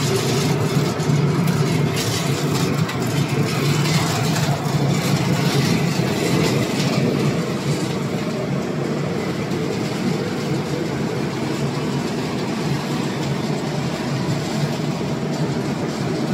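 A peanut roasting and cooling line running: the conveyor drive and machinery give a steady hum. Over the first half there is a light clatter of clicks as roasted peanuts drop off the mesh cooling belt into a stainless steel tray, and the clicks thin out after about eight seconds.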